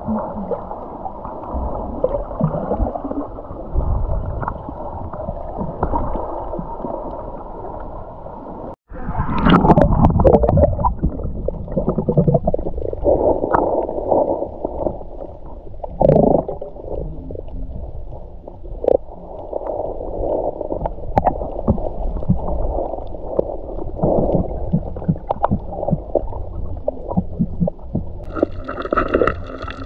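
Muffled underwater sound picked up by a camera held beneath the sea surface: gurgling water movement, bubbles and small clicks. A louder rush of water comes about nine seconds in.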